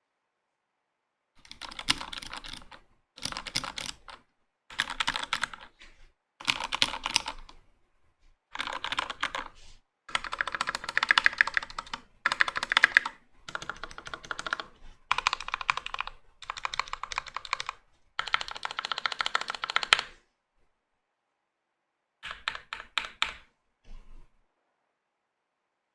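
Velocifiretech KK75 75% aluminium half-plate mechanical keyboard, fitted with Gateron Ink Black linear switches, being typed on in bursts of fast keystrokes with short pauses between them. A last short burst comes near the end.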